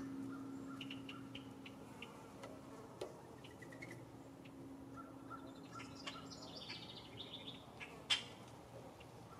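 Small songbirds chirping faintly around backyard feeders, with a quick run of falling notes in the second half and a single sharp click about eight seconds in. A faint steady hum lies under the first half.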